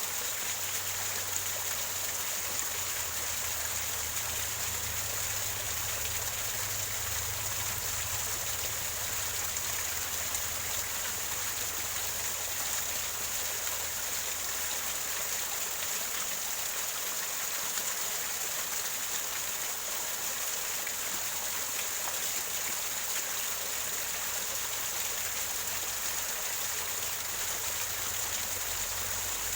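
Small waterfall or stream splashing and gurgling over rocks in a steady, even rush of water.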